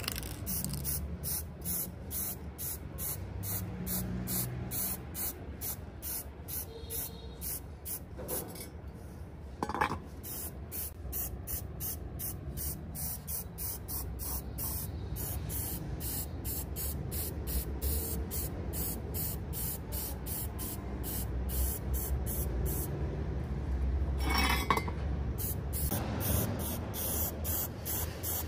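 Aerosol spray paint can hissing in short, quick bursts, about two to three a second, as metal saw parts are painted, with a couple of brief pauses. Two short knocks stand out, about ten seconds in and near the end.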